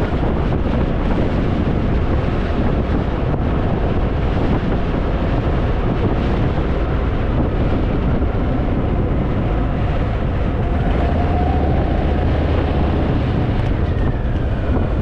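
Harley-Davidson Fat Boy's V-twin engine running at road speed, mixed with heavy wind rush over the microphone.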